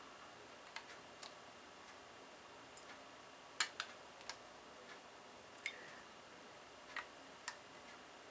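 Light, irregular clicks of a small plastic measuring spoon tapping against a plastic tub while scooping and levelling gelatin powder, the loudest pair about three and a half seconds in, over faint room tone.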